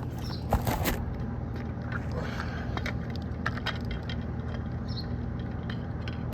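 Outdoor air-conditioner condensing unit running with a steady low hum. Scattered light clicks and crunches sound over it.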